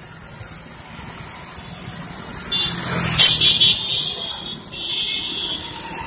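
Two-wheeler engine running while riding along a street with other traffic. About two and a half seconds in, a louder rush rises with a high-pitched horn over it, and a high horn sounds again briefly about five seconds in.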